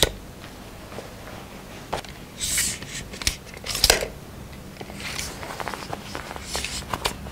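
Stiff, dense outer fabric of a child's winter jacket rustling as it is handled and turned on a coat stand, in short scattered bursts with a few light clicks.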